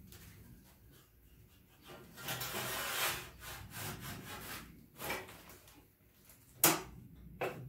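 A wooden block scraped and slid across a steel work stand, with several shorter rubbing strokes after it. A sharp knock comes near the end, the loudest sound, and a smaller knock follows it.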